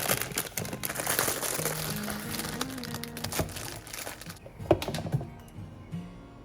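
Light background music with a dense patter of small clicks and taps for about the first four seconds, then a few sharper knocks about five seconds in.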